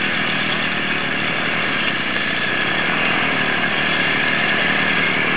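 Small single-axle tractor's engine running steadily as it is driven slowly through an obstacle course.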